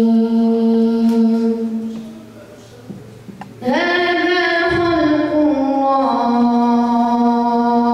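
A boy chanting Quranic recitation into a microphone in long held notes with melismatic turns. There is a pause of about a second and a half near the middle, then a new phrase slides up into another long held note.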